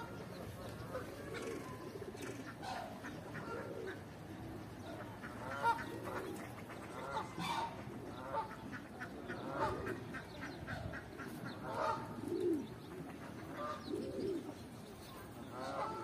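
Birds calling on and off: short honking and cooing notes scattered throughout, with a sharp click about six seconds in.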